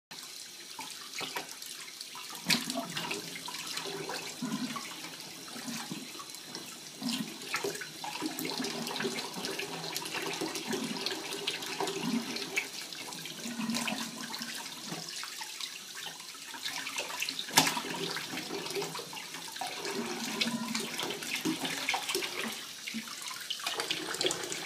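Bathwater splashing and sloshing in a tub as a toddler plays in it, with scattered small splashes and drips. Two sharper knocks stand out, one a few seconds in and one about two-thirds of the way through.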